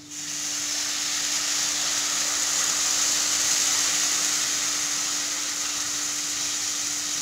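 Tamarind extract poured into hot oil in a kadai, setting off a sudden loud sizzle that starts at once and stays strong, easing slightly near the end.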